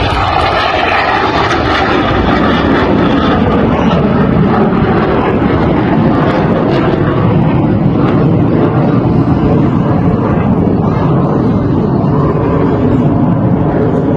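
Fixed-wing airplane flying overhead, its engine loud and steady.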